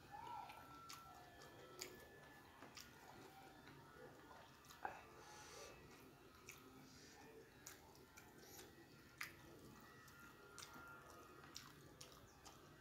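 Faint chewing with small, sharp, wet mouth clicks and lip smacks, coming unevenly about once a second, from a person eating rice and side dishes with their fingers.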